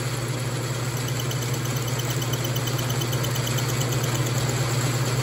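Logan metal lathe running steadily with its milling cutter spinning in the spindle, a constant motor and drive hum. A faint rapid ticking in the middle as the cutter starts to bite into the work during the plunge cut.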